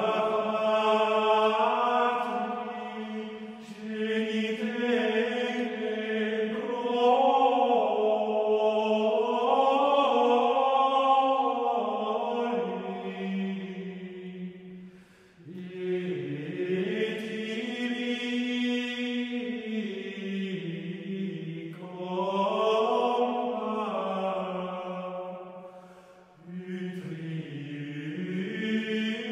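Unaccompanied Gregorian chant: voices sing a single melodic line in long, flowing phrases, with short pauses for breath about halfway through and again near the end.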